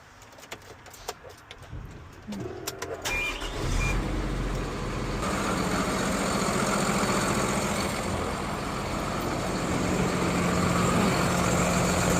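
A motor vehicle engine starts with a low rumble about three and a half seconds in, then runs steadily, after a few light clicks.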